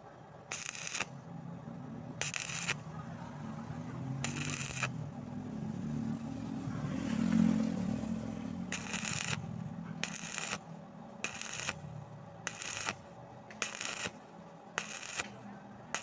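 Stick welding arc on angle iron, crackling in short bursts about once a second as the arc is struck and broken, with a longer unbroken stretch in the middle. A low hum runs underneath.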